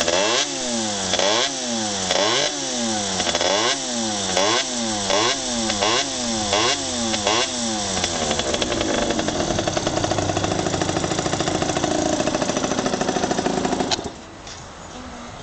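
Yamaha RZ50R's small two-stroke single-cylinder engine being blipped, about a dozen quick revs rising and falling at roughly one and a half a second. It then settles to a steady idle, and the engine sound cuts off suddenly about 14 seconds in.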